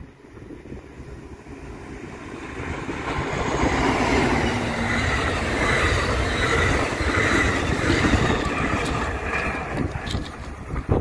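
Amtrak Pacific Surfliner passenger train approaching and passing close by: the rumble of the bilevel coaches' wheels on the rails grows louder over the first few seconds, stays loud as the cars go past, then eases near the end.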